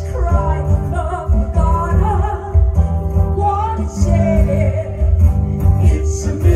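Live pop performance: a woman singing into a microphone over electric guitar and a deep bass, amplified through the venue's sound system.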